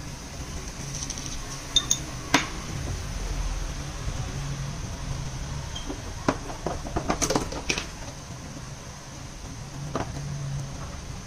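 Light clinks and taps of kitchen utensils as spices and salt are sprinkled over fish in a steel pot: a few sharp clicks about two seconds in, a quick cluster around seven seconds, and one more near the end, over a faint low hum.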